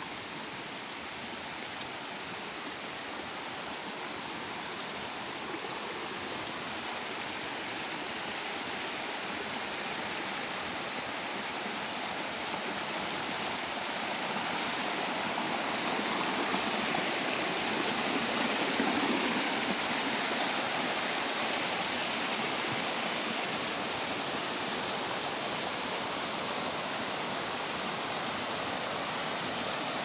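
Small forest stream rushing and splashing down a rocky cascade in a steady flow. A continuous high trill of crickets rides over the water throughout.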